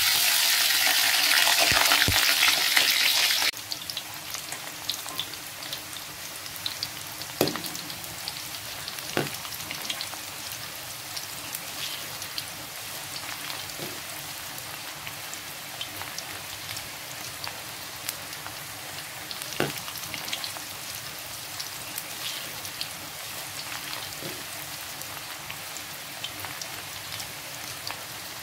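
Potato strips deep-frying in hot oil in a wok. They sizzle loudly for the first three or four seconds after going into the oil, then settle into a steady, softer crackling fry. A metal spatula clinks against the wok now and then as the fries are stirred.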